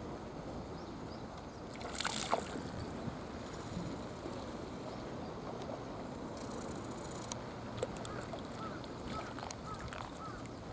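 Pufferfish out of water grinding its teeth and making short squeaking sounds, over a steady hiss, with a brief louder rustle about two seconds in.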